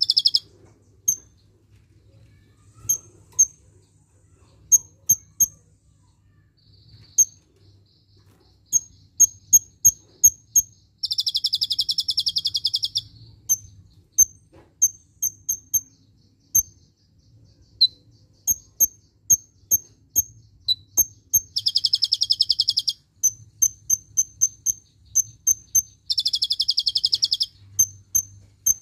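Kolibri ninja sunbird calling: sharp high chirps, singly and in quick runs, broken three times by a rapid trill lasting about two seconds.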